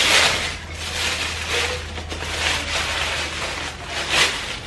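Tissue gift-wrap paper rustling and crinkling as it is unwrapped by hand, in several irregular swishes, the loudest at the start and another near the end.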